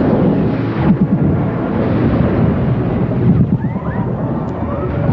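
Animated-cartoon action sound effects: a loud, continuous rumble like explosions, with a few short rising tones near the end.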